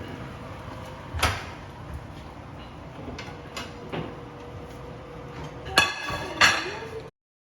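Kitchen utensils knocking against a cooking pan: a sharp knock about a second in, a few lighter clicks, then two loud metallic clanks that ring briefly near the end. A faint steady hum runs underneath, and the sound cuts off abruptly just before the end.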